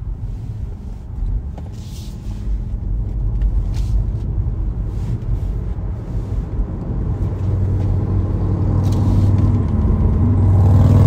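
Car engine and tyre noise heard from inside the cabin, a steady low rumble that grows louder over the last few seconds as the car accelerates up a freeway on-ramp.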